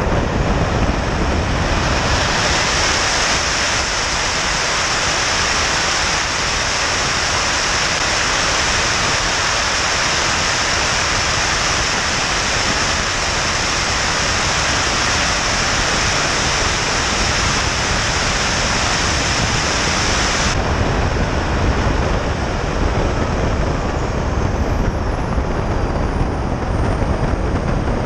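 Small 8 kg-thrust turbojet engine of a model jet aircraft running, heard from a camera on the airframe: a steady rushing roar mixed with airflow noise. A bright high hiss sits on top for most of the time and drops out suddenly about two-thirds of the way through, and a thin high whine glides down near the end.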